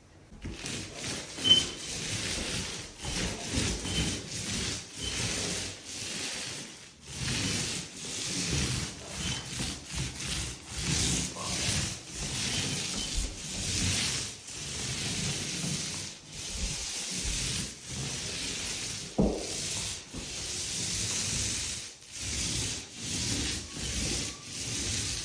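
Sandpaper rubbed by hand over a drywall patch in repeated back-and-forth strokes, a scratchy hiss that rises and falls with each stroke. There is one sharp knock about three-quarters of the way through.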